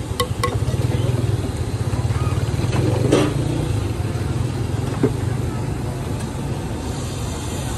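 A steady low engine hum, with two light ringing taps right at the start and a brief louder clatter about three seconds in.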